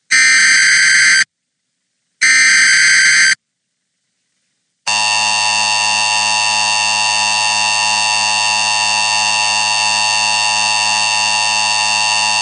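Emergency Alert System tones: the last two of the three bursts of the SAME digital header, about a second each with a second's gap between them, then after a short silence the steady attention tone starting about five seconds in and sounding for roughly eight seconds. The alert introduces a tornado warning.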